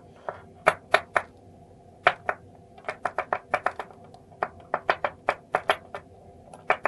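Brass plug of a BKS round lock cylinder knocked against a wooden workbench as its old, worn pin tumblers drop out and click onto the wood. It makes an irregular run of sharp little clicks and taps, several in quick succession.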